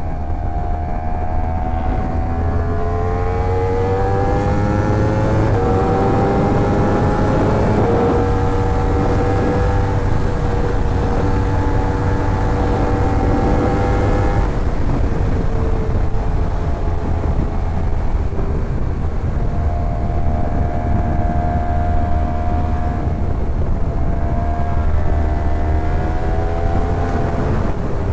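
Yamaha R1 inline-four sportbike engine under way, its pitch climbing slowly as it pulls for about the first half, then falling away sharply and holding fairly steady for the rest. A heavy low rumble of wind on the microphone lies under it.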